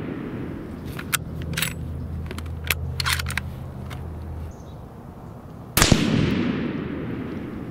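Remington 700 ADL bolt-action rifle in .30-06: the bolt is worked with a handful of sharp metallic clicks between about one and three and a half seconds in, then one rifle shot near six seconds in, its report fading over the next second and a half.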